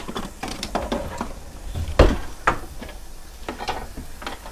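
Kitchen clatter: about half a dozen scattered light knocks and clinks of dishes and a cupboard being handled, the loudest about two seconds in.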